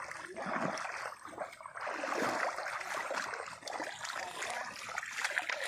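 Shallow water sloshing and splashing unevenly as hands grope through it for fish.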